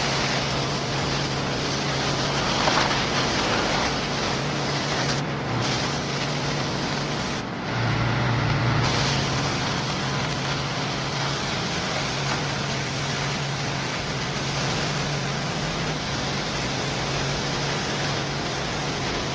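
Pressure washer running steadily: a constant motor hum under the loud hiss of the high-pressure water jet spraying onto brick.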